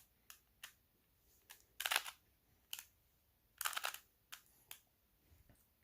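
Plastic clicks and clacks of a Rubik's cube's faces being turned, about eight in all, irregularly spaced, two of them longer.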